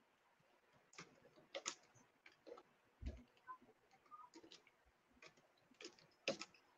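Faint, irregular clicks of typing on a computer keyboard, a scattered keystroke every fraction of a second.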